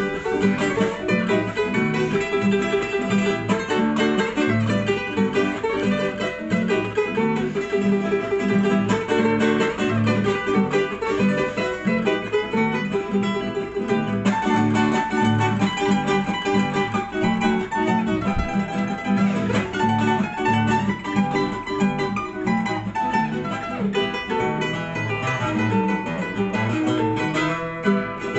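Classical guitar and charango strumming and plucking together in a lively instrumental introduction to an Andean huayno song, without voice.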